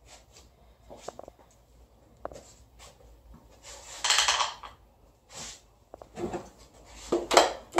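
Metal parts clinking and knocking: bolts and a metal motor mount bracket handled and set against an aluminium engine block. There is a short scraping rush about four seconds in and a louder knock near the end.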